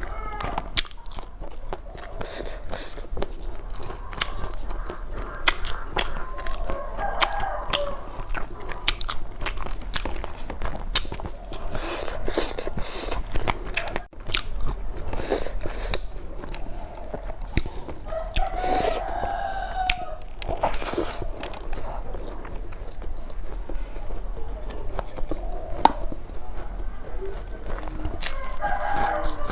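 Close-miked chewing and biting: a person eating with wet mouth clicks, smacks and crunches scattered throughout.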